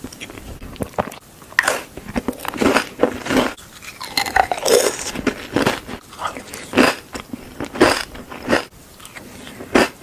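Close-up crunching: a person biting into and chewing crisp food in irregular crunchy bites.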